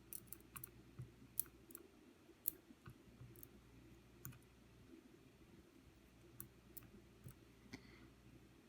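Faint, scattered small clicks and ticks from tiny pins and parts of a milled-open Assa lock core being handled on a work surface; the sharpest click comes about two and a half seconds in.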